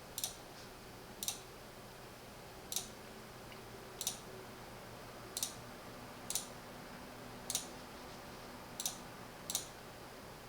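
Computer mouse clicking through software menus: single sharp clicks, about one a second, nine in all.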